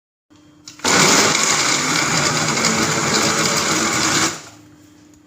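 Electric blender running at full speed, blending parsley, lemon and water. It starts abruptly about a second in, runs evenly, and stops about three and a half seconds later.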